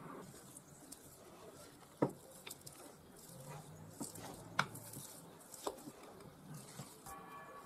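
Wooden spoon stirring a sticky date and oat mixture in a glass bowl: soft scraping and squishing, with a few sharp knocks of the spoon against the glass, the loudest about two, four and a half, and five and a half seconds in.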